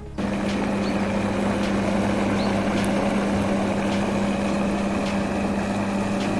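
Electric countertop blender running steadily at speed, with a constant motor hum, blending fruit and milk into a smoothie.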